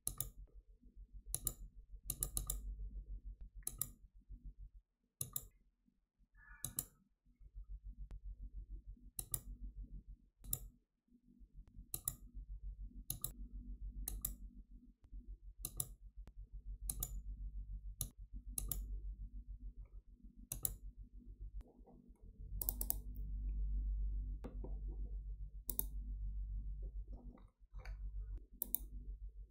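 Computer mouse clicks, sharp and irregular, roughly one a second, over a steady low hum.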